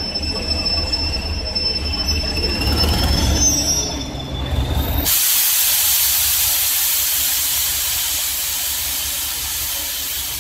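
Class 201 'Hastings Thumper' diesel-electric unit creeping in, its English Electric four-cylinder diesel engine giving a low rumble under high-pitched wheel squeal, one squeal gliding upward about three seconds in. About halfway through, a sudden loud, steady hiss takes over and the low rumble drops away.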